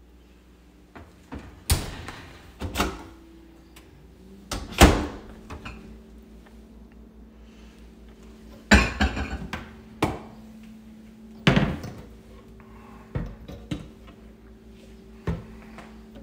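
Kitchen cabinet doors and an oven door being opened and shut by hand: a series of about nine sharp knocks and thuds, the loudest about five and nine seconds in. A faint steady hum runs behind them from about four seconds in.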